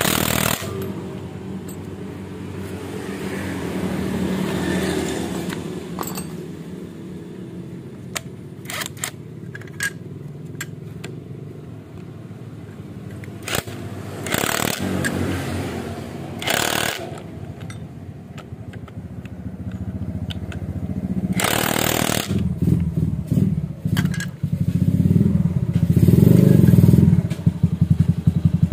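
Cordless driver with a socket bit running in several short bursts as it runs in the clutch bolts. A motorcycle engine runs underneath, getting louder near the end.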